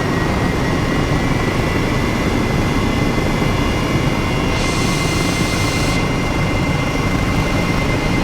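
Aircraft engines running on an aircraft carrier: a steady, loud roar with a high whine held on one pitch. A brighter hiss joins in for about a second and a half midway.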